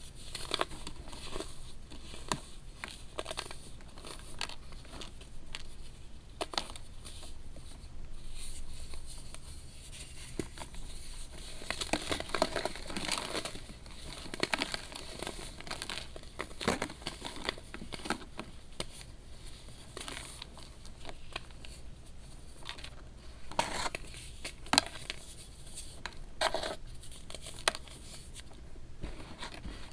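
Pressed baking soda being crumbled and crushed, with irregular crunches and crackles and a denser run of crunching about halfway through.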